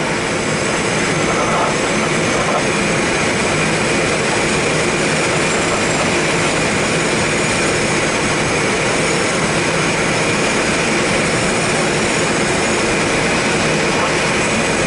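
Steady rush of airflow around the canopy of a Super Blanik two-seat glider in flight, with no engine, and a faint steady high whistle under the rush.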